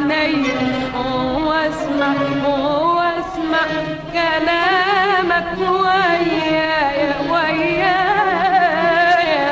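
Egyptian classical Arabic song music: an ornamented melody line with wide vibrato over a steady low note.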